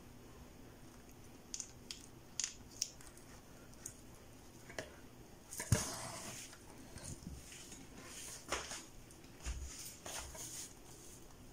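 Hand-sewing hair wefts onto a wig cap: a needle and thread worked through the hair and cap, giving scattered soft clicks and rustles, with a louder knock about six seconds in.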